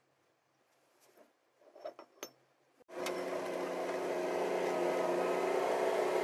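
A few faint metallic clinks as differential parts are handled, then about three seconds in a steady engine drone starts suddenly and keeps running at an even level.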